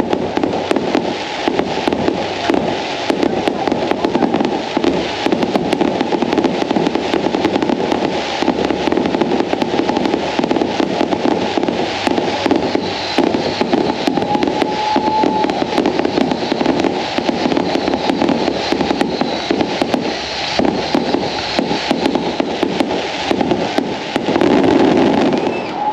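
Fireworks finale: a rapid, unbroken barrage of aerial shell bursts and crackle, bang after bang with no pause, swelling to its loudest near the end.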